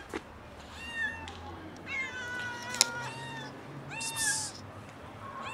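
Black-and-white stray kitten meowing three times, the middle call the longest, typical of a hungry cat begging for food. A single sharp click cuts in during the long middle meow.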